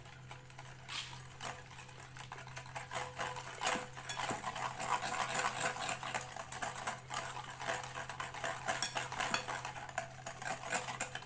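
A utensil stirring egg yolks, icing sugar and oil in a mixing bowl: quick, rapid clicking and scraping against the bowl, getting busier about four seconds in.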